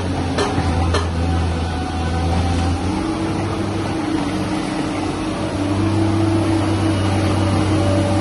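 Tata Hitachi crawler excavator's diesel engine running steadily under hydraulic load while the bucket digs into soil and broken rock. A few sharp clanks of stone or steel come in the first second. The engine note grows louder and fuller a little past halfway.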